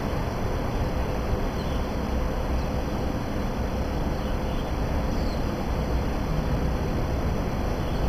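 Steady low rumbling background noise with no distinct events, and a faint steady tone joining about half a second in.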